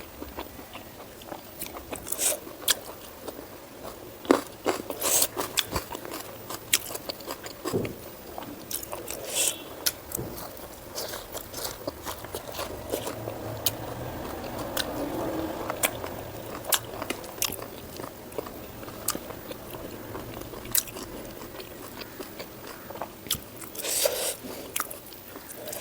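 A person eating pork fat and rice close to the microphone: chewing and biting with wet mouth smacks and crunchy clicks at irregular intervals.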